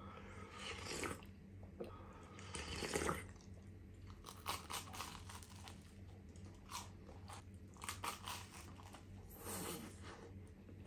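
Close-up eating sounds: two slurps of soup from a spoon, then crisp crunching bites into grilled toast of a ham sandwich and chewing, with many short crackles and wet mouth sounds.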